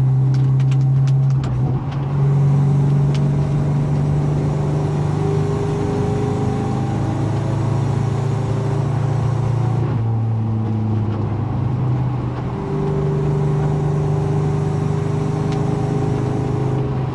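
Mazda B2200 pickup's 2.2-litre four-cylinder engine running at a steady cruise, heard from inside the cab. Its note drops about ten seconds in and rises again a couple of seconds later.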